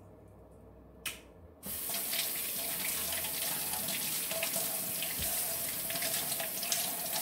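A kitchen faucet turned on about a second and a half in, after a single click, and running steadily. The stream splashes over a peeled hard-boiled egg and hands into a stainless steel sink as the egg is rinsed.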